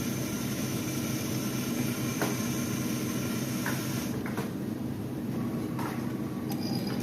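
Self-serve iced coffee machine running and dispensing: a steady motor-and-pump hum with a high hiss that stops about four seconds in, then a few light clicks.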